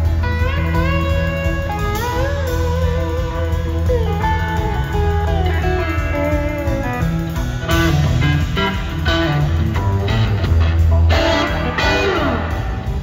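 Live band playing an instrumental passage: an electric guitar lead with bent and sliding notes over steady bass and drums. About halfway through, the playing grows busier with heavier chords and drum hits, and a long downward slide comes near the end.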